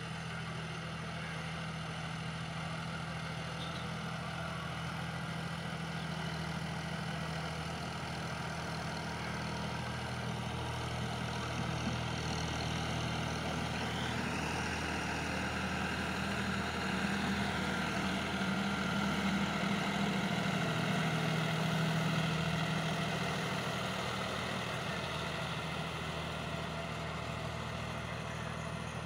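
John Deere 5050 tractor's three-cylinder diesel engine running steadily under load as it drives a rear-mounted rotavator through the field. It grows louder past the middle as the tractor passes close, then eases off as it moves away.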